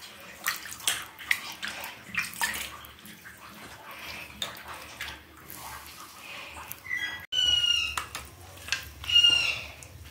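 Raw fish pieces being washed by hand in water in a steel plate: irregular splashing and wet clattering. From about seven seconds in, a few short high-pitched animal calls are the loudest sounds.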